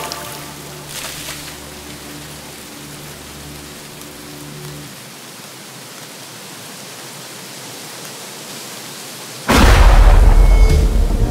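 Steady hiss of heavy rain under low held music tones that fade out about halfway through. About nine and a half seconds in, a sudden loud crash of thunder breaks in, with music starting up behind it near the end.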